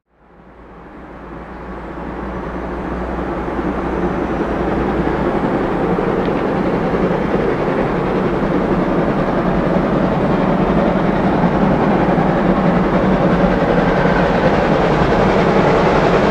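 DR class 01 steam locomotive 01 2066 working up a steep grade, not yet in sight. Its sound rises out of silence over the first few seconds, then holds steady and loud.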